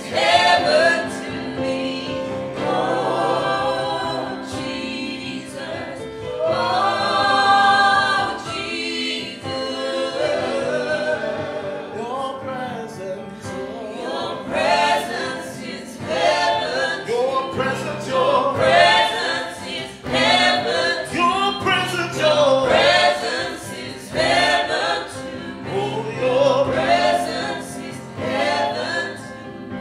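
Small mixed group of men and women singing gospel worship, with held keyboard chords underneath.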